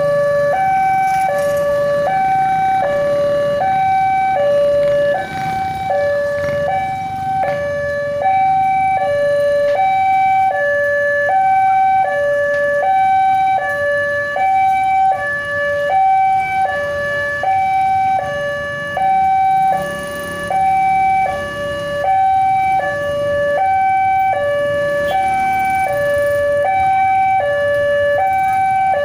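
Electronic level-crossing warning alarm sounding from a loudspeaker horn on the signal pole. It alternates steadily between a higher and a lower tone, switching less than once a second, and it signals that the crossing is closed for a train. A low rumble of traffic runs underneath.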